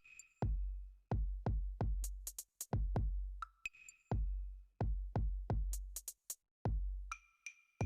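Electronic music with a drum-machine beat: deep kick drum hits and sharp hi-hat ticks in a steady rhythm.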